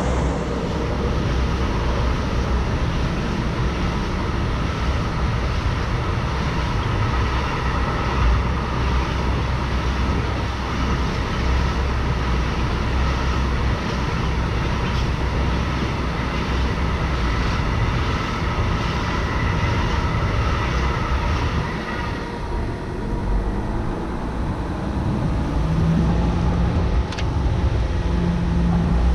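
Volkswagen Amarok pickup driving on a dirt off-road course, its engine running with a steady rumble from the vehicle. The sound thins out about three quarters of the way through, and a low steady hum comes in near the end.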